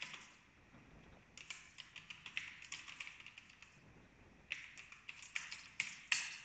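Computer keyboard typing: two runs of quick keystrokes with a short pause between them, the last few strokes near the end the loudest.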